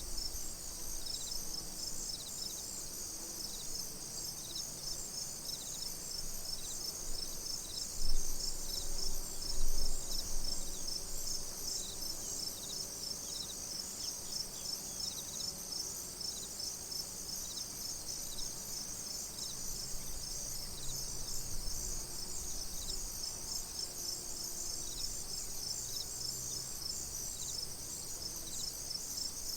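Crickets chirping in a dense, steady chorus, with one cricket standing out in a slower, regular chirp. Two low thumps come about eight and ten seconds in.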